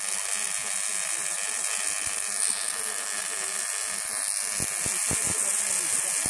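Spark-gap Tesla coil of about 1 kW running, its discharges making a steady electric buzzing sizzle.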